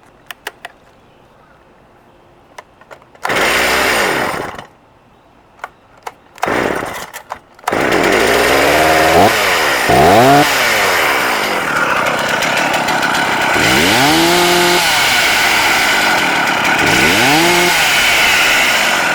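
Stihl 036 Pro two-stroke chainsaw being started. After a few clicks it runs in two short bursts, about three and six seconds in, then catches at about eight seconds and keeps running. The throttle is blipped four times, each rev rising and falling back.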